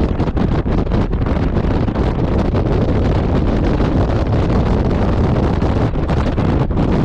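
Wind buffeting the microphone of a Honda Gold Wing touring motorcycle at motorway speed, a loud continuous rush with rapid flutter, over the bike's running and tyre noise.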